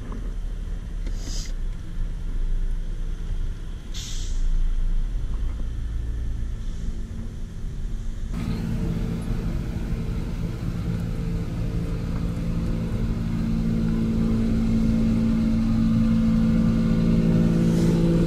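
Low vehicle rumble inside a car, with two short hissy noises in the first few seconds. About eight seconds in, the sound opens up and the steady hum of a large diesel engine running close alongside takes over, growing louder toward the end.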